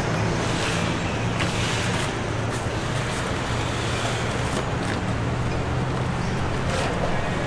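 Steady traffic-like street noise with a low hum. Through it come a few short knocks and scrapes as a long knife cuts through and splits open a large jackfruit.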